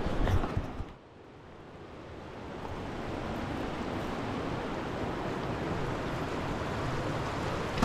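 River water rushing steadily. It cuts out about a second in and swells back up to a steady level, with a few low knocks in the first second.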